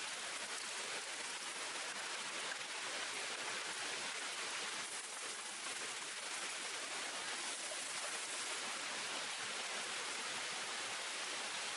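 Steady rushing hiss of water, even throughout with no distinct drops or breaks.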